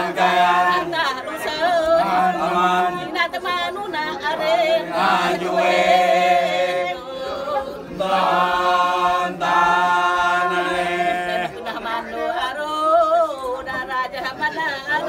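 A mixed group of men and women singing together unaccompanied, a chant-like song in long held phrases with brief pauses between them.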